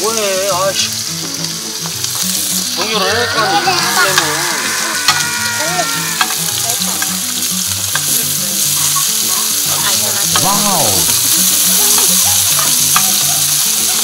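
Sliced pork sizzling steadily on a grill pan over a portable gas stove, with a few clicks as tongs and chopsticks turn and pick up the pieces.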